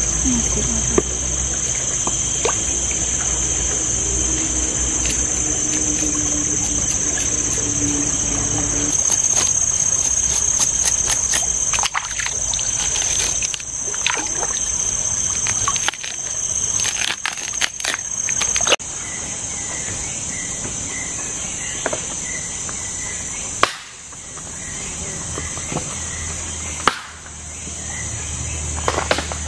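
A steady, high-pitched insect drone, the chorus of a tropical forest, with scattered short clicks and knocks through the middle.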